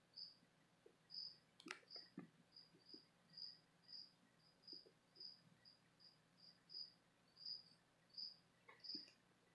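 A cricket chirping faintly and steadily, about two short, high chirps a second, with a few faint clicks about two seconds in.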